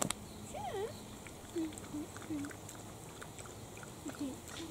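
Italian greyhound puppies vocalising while play-fighting: a wavering whine about half a second in, then several short, low calls.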